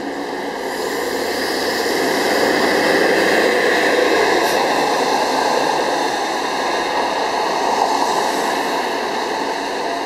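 New Flyer C40LF CNG city bus with a Cummins ISL-G natural-gas engine pulling away past and then driving off. Its engine and tyre noise swells over the first three or four seconds as it goes by, then slowly fades as it moves off down the street.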